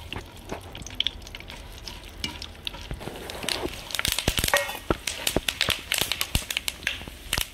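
Cucumber seeds frying in hot desi ghee in a kadhai: a steady sizzle with scattered crackles. From about four seconds in, rapid sharp crackles come as the seeds start to pop while they roast.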